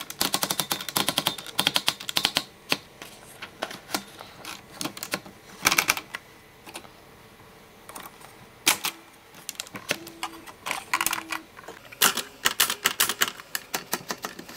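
Keys of a 1941 Smith-Corona manual typewriter being typed in quick bursts of sharp clicks, with short pauses between runs.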